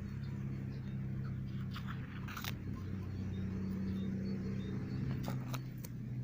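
A steady low engine hum, with a few sharp clicks about two seconds in and again near the end.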